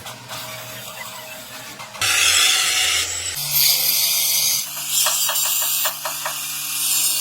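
Loud steady hissing that starts suddenly about two seconds in, later joined by a low steady hum, with a few short clicks near the middle.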